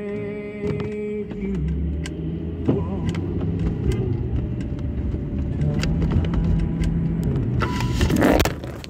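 Inside a car driving on a wet street: the engine's steady hum and road noise, with a brief loud burst of noise near the end.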